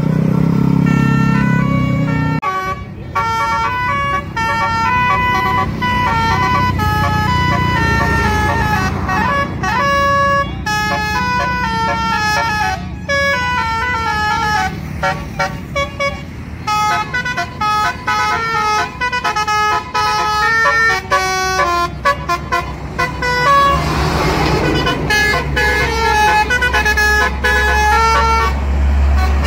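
Tour bus's Basuri melodic horn sounding through roof-mounted trumpets, playing a fast tune of stepped notes, over a steady low engine rumble.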